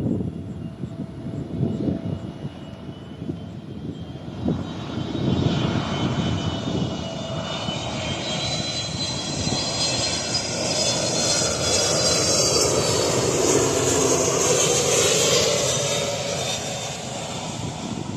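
Jet airliner passing low overhead on its landing approach: engine noise builds from about four seconds in, peaks midway with a high whine over the rumble, then eases off near the end.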